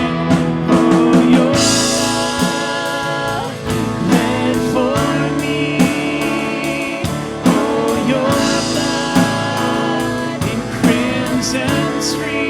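Worship band playing with singing: guitar and drum kit under sung vocals, drums keeping a steady beat.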